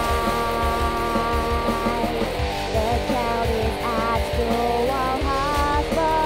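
Background rock music: guitar and a wavering melody line over a steady drum beat.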